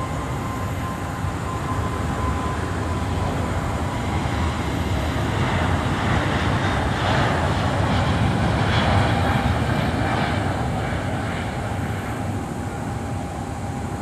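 Emirates Airbus A380's four jet engines at takeoff power on the runway, a distant roar that builds about halfway through and eases off near the end. A steady high whine runs underneath.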